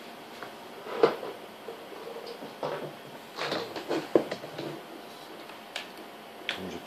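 Knocks and clatter of a plastic laptop power adapter brick being handled on a wooden desk, picked up and its cord connector fiddled with. A sharp knock about a second in is the loudest, with several smaller knocks later.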